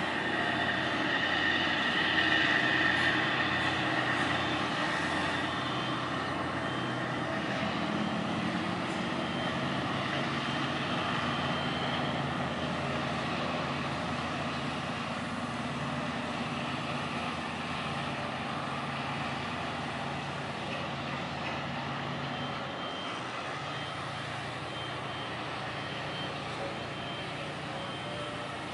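The fishing vessel Northwestern's diesel engine running as the boat motors along the channel: a steady drone that fades slowly as it moves off. A higher whine is loudest in the first few seconds.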